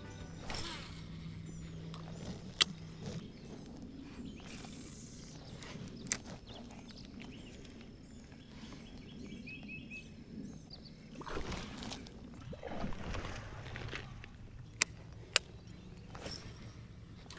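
Quiet on-the-water sounds from a plastic pedal fishing kayak: water lightly sloshing against the hull, with four sharp knocks of gear against the boat.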